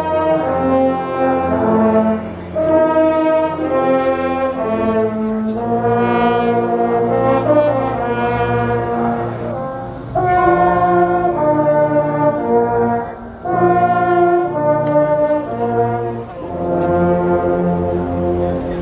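Brass music: a melody of held notes on brass instruments, played in phrases of a few seconds with short breaks between them.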